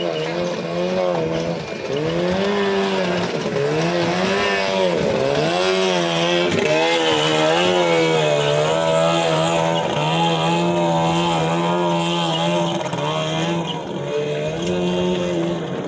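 15 hp outboard motors on racing longboats running hard, their pitch rising and falling continually as the throttles and hulls work; at times two engines are heard at slightly different pitches.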